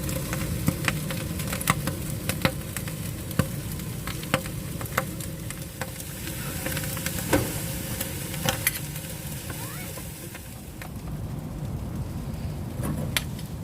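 Braised pig's trotters being stir-fried on a hot griddle, sizzling steadily, with irregular sharp clicks and knocks throughout.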